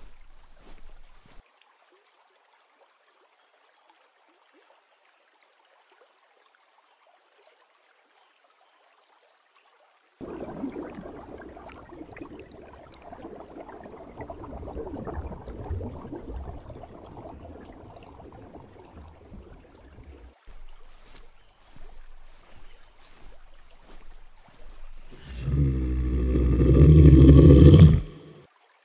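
A few faint clicks, then silence, then rushing, gurgling water from about ten seconds in that thins to a sparser trickle after about twenty seconds. Near the end a loud pitched creature roar lasts about three seconds and cuts off abruptly.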